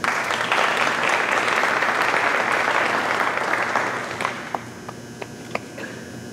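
Audience applauding, dense clapping for about four seconds that then dies away to a few scattered claps.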